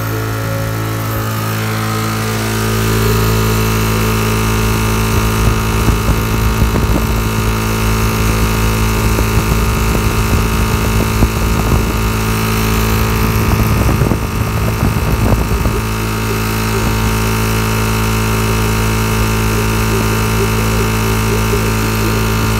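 Three-phase induction motor driven by a variable frequency drive, turning a small generator: a steady machine hum made of several constant tones. Irregular low knocks and rumbles are laid over it from about five to sixteen seconds in.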